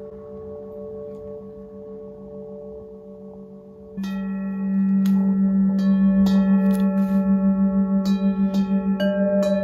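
Metal singing bowls ringing: a faint steady tone at first, then from about four seconds in a bowl is struck repeatedly with a wooden stick. The strikes build up several ringing tones together, louder, with a slow wobble in the lowest tone.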